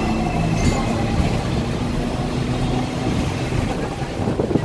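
Ride noise on board a moving Hong Kong double-decker tram: a steady low hum and rumble of the tram running on its rails, with a couple of brief knocks. The engines of double-decker buses alongside mix in.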